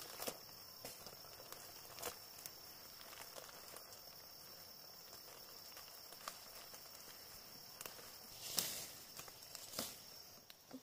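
A steady high-pitched insect call that stops shortly before the end, with scattered rustles and knocks, the loudest about eight and a half seconds in.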